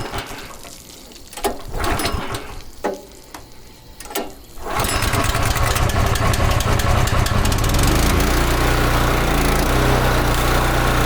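A pressure washer's gasoline engine catches suddenly about five seconds in, after a few knocks and clicks of handling, and then runs steadily.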